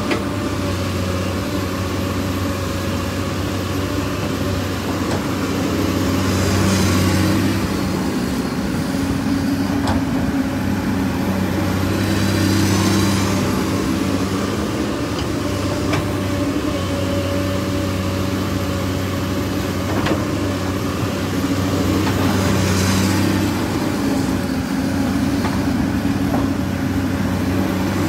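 An engine running steadily at an even pitch, with a rushing hiss swelling up and fading three times.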